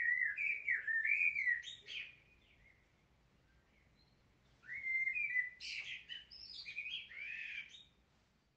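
A bird singing: two short phrases of quick warbling, chirping notes, the second starting about five seconds in after a pause.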